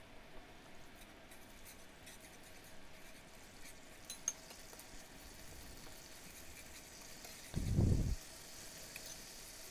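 Faint sizzling of a thin curd-and-tomato gravy in a nonstick pan as a perforated metal spoon stirs it, with a few light clicks of the spoon. A dull thump about eight seconds in.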